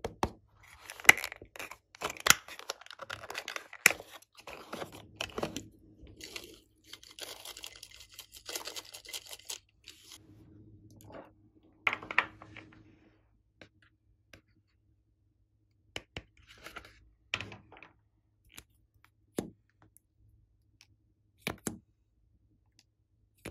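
Hands handling a plastic toy case and small makeup items: sharp plastic clicks with crackly scraping and rustling through the first ten seconds or so, then scattered single clicks and taps.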